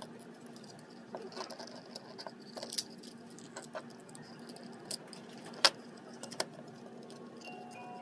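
Small scattered clicks and scrapes of a thin screwdriver prying at a plastic toy pistol's housing, in sped-up footage, with one sharp plastic snap about five and a half seconds in.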